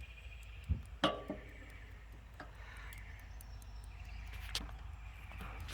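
Metal hand tool clinking against the anode rod fitting of an RV water heater: a few scattered sharp clicks, the clearest about a second in with a short metallic ring.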